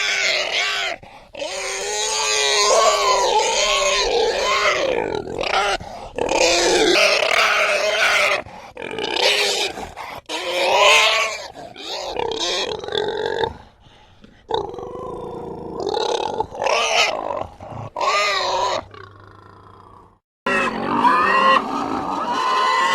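Pigs squealing: a run of loud, wavering, high-pitched squeals, one after another with short breaks between them, and a brief lull near the end.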